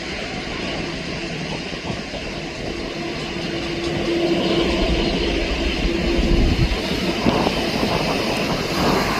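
Jet engines of a departing Boeing 777-200, a steady rumbling noise that grows louder about four seconds in.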